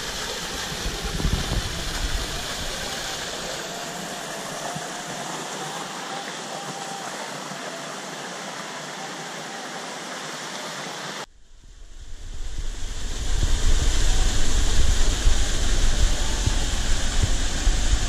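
Steady rush of a waterfall and a stream running over rock. About eleven seconds in, the sound cuts off abruptly and returns louder, with a deep rumble underneath.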